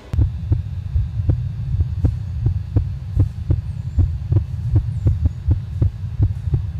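Horror sound effect: a quick, regular heartbeat-like thudding over a steady low hum, starting suddenly.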